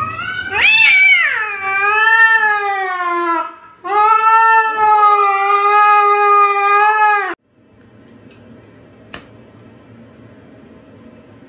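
Domestic cat yowling: two long, drawn-out calls, the first rising and then falling, the second held steady, cut off abruptly.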